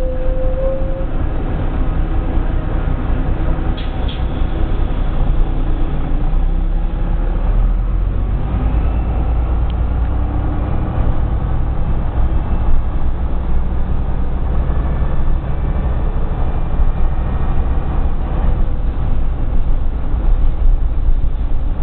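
Van Hool A120 city bus heard from inside the passenger cabin: engine and drivetrain running steadily, with faint rising tones about a third of the way in. The gearbox makes an added noise, which the owner notes as a fault of this bus.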